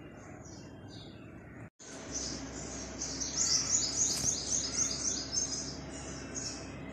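Small birds chirping in quick repeated calls, several a second, over a low steady hum. The sound drops out for a moment just under two seconds in, and the chirping is louder after that.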